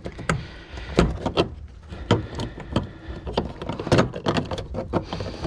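Irregular clunks and clicks from the fuel pump/sending unit and its lock ring being handled and pressed into the fuel tank opening against the assembly's spring, with the loudest knocks about one, two and four seconds in.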